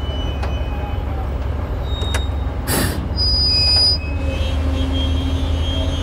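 A 225-ton crawler crane's diesel engine running with a steady low rumble. About three seconds in comes a short hiss, then a high, steady squeal for under a second, the loudest moment. After that a steady whine and hum rides over the engine.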